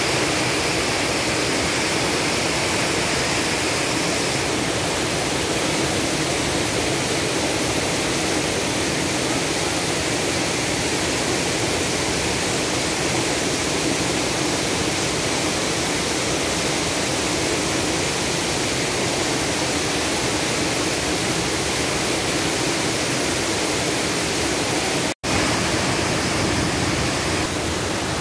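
Steady rushing of a waterfall, white water pouring over broad rock slabs into a boulder-strewn stream. The sound breaks off for an instant near the end.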